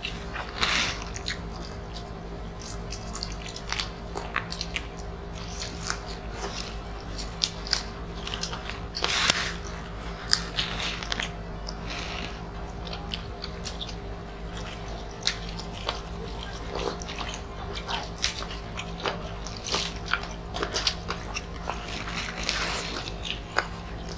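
Close-up eating sounds: several people chewing and biting into grilled chicken and rice eaten by hand, with irregular wet smacks and clicks, over a steady low hum.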